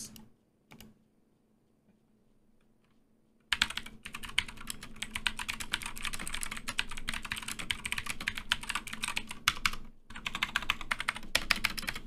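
Typing on a slim low-profile keyboard: after a faint single click near the start, a quiet spell, then a fast, steady run of key strikes from about three and a half seconds in, with a brief pause near the end.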